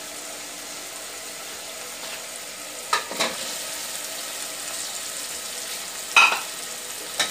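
Onion-tomato masala sizzling steadily as it fries in a metal pot. Raw chicken pieces go in, with two short clatters, about three seconds in and again about six seconds in.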